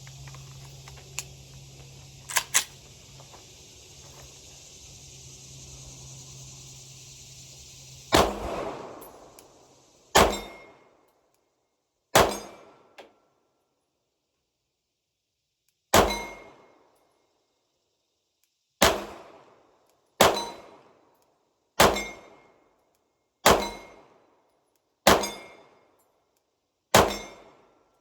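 Slow, deliberate single shots from a Glock 45 9mm pistol: ten shots, the first about eight seconds in, then one every one to four seconds, each with a short ringing decay. Before the first shot there is a steady background hiss with a few faint clicks.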